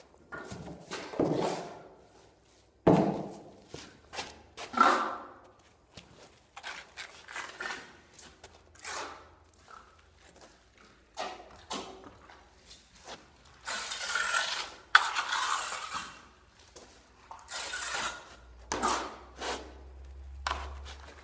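Plasterer's steel trowel scraping white set finishing plaster off a hawk and across a wall in irregular strokes, with knocks and footsteps on a concrete floor.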